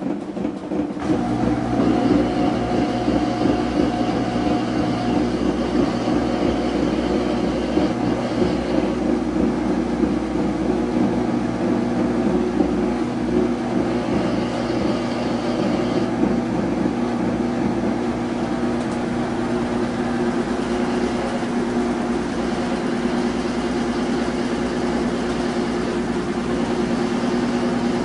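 Samsung washing machine running, a steady motor hum and drum rumble that starts about a second in, with higher whining tones coming and going. The machine has a balance fault that keeps it from finishing its cycle.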